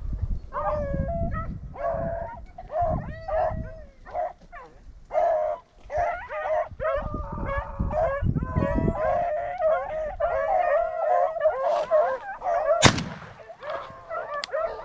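Rabbit dogs baying and yelping in a running chase, with a single shotgun shot near the end that brings down the rabbit.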